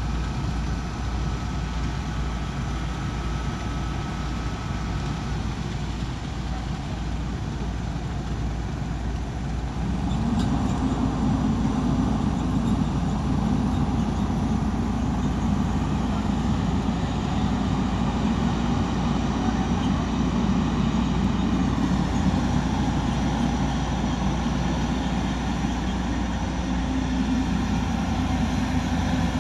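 Heavy diesel construction machinery running steadily, growing louder about ten seconds in as the engine works harder.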